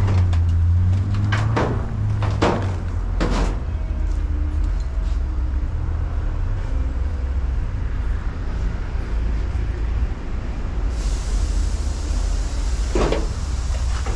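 Steady low rumble of a vehicle engine, with several sharp knocks in the first few seconds and another near the end.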